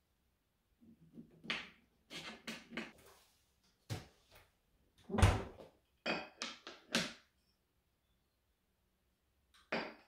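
Kitchen handling sounds on a wooden countertop: a string of short clicks, scrapes and knocks from a knife, a spread tub, a plastic cutting board and a ceramic plate being moved and set down. The loudest is a dull thump about five seconds in.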